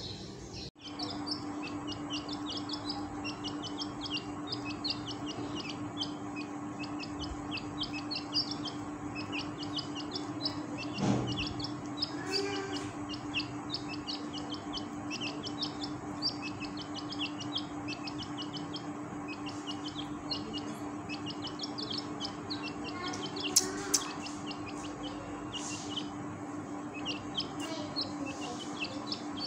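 Partridge chicks peeping without pause, short high chirps several a second, over a steady low hum. A couple of sharp clicks stand out about two-thirds of the way through.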